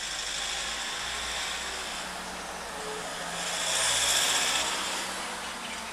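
Passing road traffic, a broad rushing noise with a low rumble that swells to its loudest about four seconds in and then fades.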